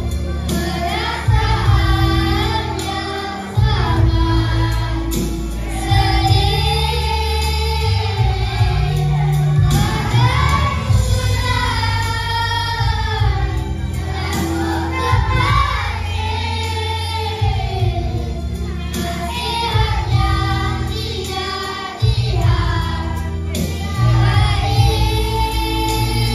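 A group of children singing together into microphones over backing music with a steady bass line.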